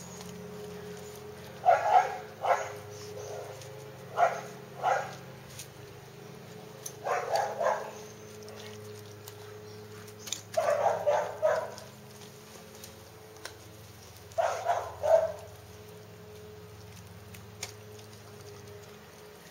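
A dog barking in short bouts: five clusters of two or three quick barks, a few seconds apart.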